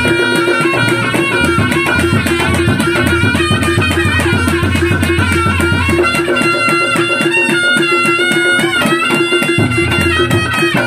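Reog gamelan music: a wailing reed melody, typical of the slompret shawm, over fast drumming and steady gong and percussion strokes.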